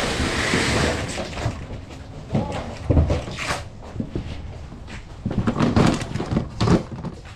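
Knocks and thuds of a bag and plastic storage bins being set down and shifted on a moving truck's cargo floor, with boot steps on the deck; a cluster of several thumps comes near the end.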